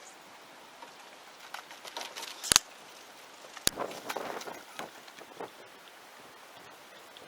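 Two sharp knocks about a second apart, with scattered lighter clicks and a short burst of rustling clatter after the second one.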